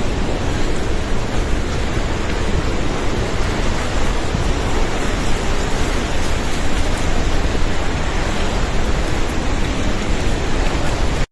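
Floodwater rushing in a loud, steady roar of water, with no breaks.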